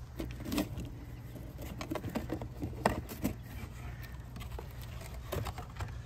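Cardboard shoebox handled on the ground: scattered small knocks, scrapes and rustles as its lid is worked off.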